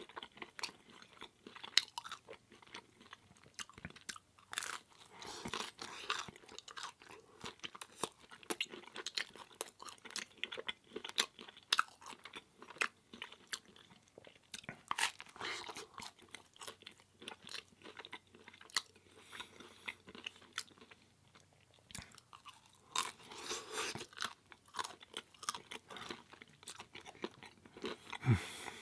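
A person chewing vegan pizza close to the microphone: a long, irregular run of crunching and biting sounds with short pauses between mouthfuls.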